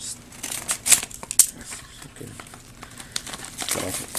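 Scissors snipping through a plastic mailer bag in a quick run of short crisp cuts, then the bag crinkling and rustling as it is pulled open, loudest near the end.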